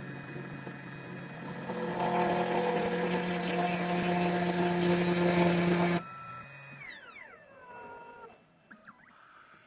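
2M2 Tank CNC key cutting machine's spindle cutting a Mul-T-Lock key blank: a steady motor whine with grinding cutting noise, louder from about two seconds in, that stops suddenly about six seconds in, followed by a falling whine as it winds down.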